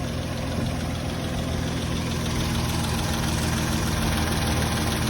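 Car engine idling steadily, just after being started despite a failing starter.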